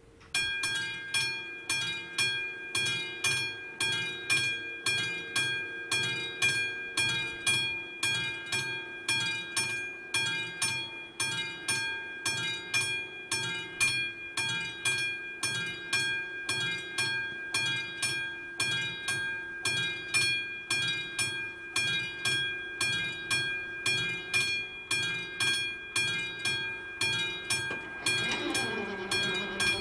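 Level-crossing warning bell of an AŽD 71 crossing ringing steadily at about one and a half strikes a second, starting suddenly as the crossing activates for an approaching train. Near the end the barrier drive starts up: a motor hum that slides down in pitch and then holds steady as the booms begin to lower.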